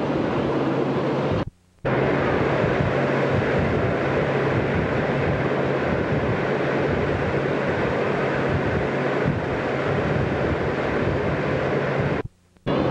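Steady rushing noise of wind on the microphone and the cruise boat's engine running, with a low steady hum under it. The sound cuts out abruptly for a moment twice, about a second and a half in and near the end.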